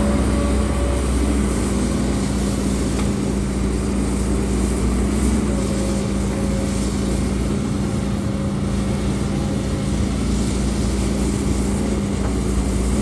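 Diesel engine of heavy earthmoving machinery running steadily, a constant hum that holds the same pitch throughout.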